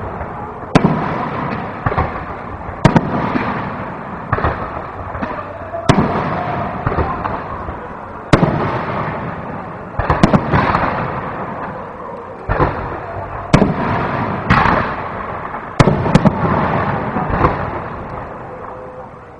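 Aerial firework shells bursting overhead one after another, sharp booms every second or two, some in quick pairs, each followed by a fading echo.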